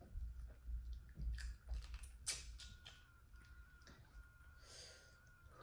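Quiet sounds of eating boiled crawfish by hand: soft low thuds and a few small sharp cracks of shell in the first two seconds or so, then fainter picking and chewing.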